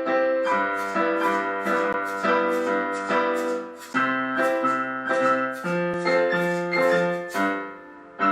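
Piano music: chords struck about twice a second, each ringing and fading before the next.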